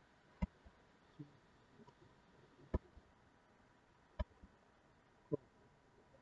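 Computer mouse button and keyboard spacebar clicks: four sharp clicks a second or more apart, some followed by a softer release click.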